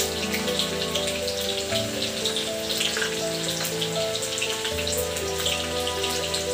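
Potatoes and sliced onions sizzling and crackling in hot oil in a kadai, over background music with long held notes.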